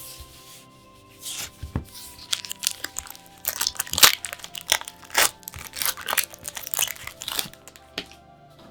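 Packaging wrapper being torn open and crinkled by hand, a quick run of ripping and crackling strokes that stops about a second before the end, over soft background music.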